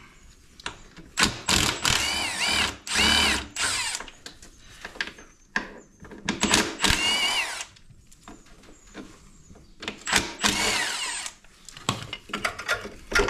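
Cordless drill-driver with a socket spinning in about five short trigger bursts, its whine rising and falling with each, undoing the bolts of a quad's foot peg, with short clicks between the bursts.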